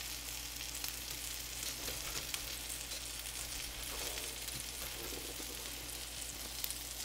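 Crab cakes frying in bacon grease and butter in a cast iron skillet: a steady sizzling hiss with scattered small pops and crackles.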